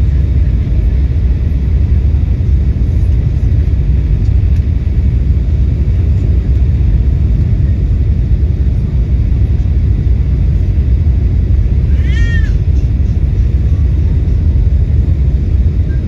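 Airliner cabin noise during the descent: a loud, steady low rumble of engines and airflow. About twelve seconds in comes one short, high cry that rises and falls in pitch.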